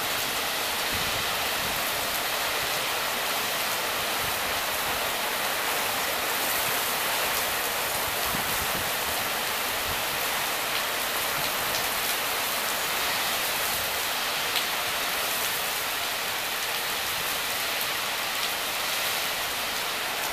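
Heavy rain falling in a steady, even hiss, with wind gusting through the trees and buffeting low underneath.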